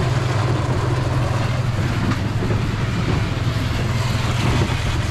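A vehicle driving across lake ice: a steady low engine drone under an even rushing noise, heard from inside its wooden cab.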